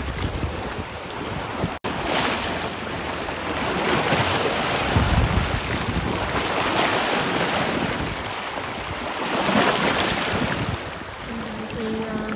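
Sea waves breaking and washing in, with wind buffeting the microphone; the surf swells louder twice. The sound cuts out for an instant about two seconds in.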